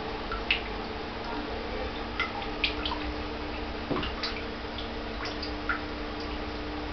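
Water dripping and plinking into an aquarium in irregular drops, over the steady hum of a submersible aquarium pump.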